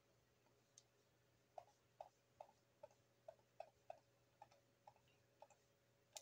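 Faint computer mouse button clicks, about a dozen at roughly two a second, as areas of a picture are filled with the paint-bucket tool in a drawing program.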